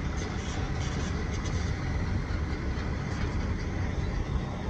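Heavy diesel dump truck's engine running steadily as the truck rolls forward.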